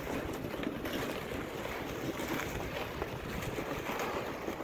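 Ice-fishing gear sled scraping and hissing as it is dragged over crusty snow, with wind on the microphone.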